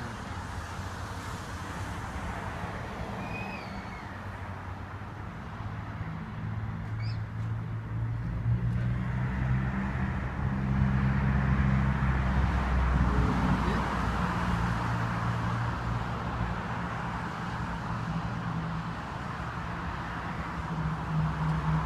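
A vehicle engine running with a steady low hum that swells and shifts in pitch from about eight seconds in. A few short bird chirps come in the first several seconds.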